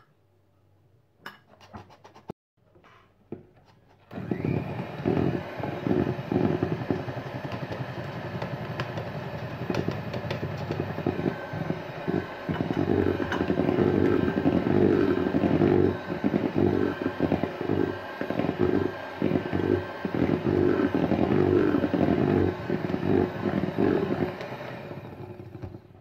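Electric hand mixer beating flour into cake batter, its motor running steadily with the beaters churning through the batter in the bowl. It starts about four seconds in, after a few light taps, and stops just before the end.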